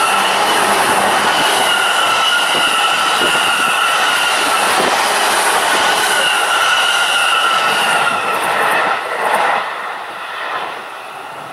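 E531-series Joban Line electric commuter train passing close by at speed: rolling rumble with a steady high ringing tone over it. The sound drops away about nine to ten seconds in as the last car goes by.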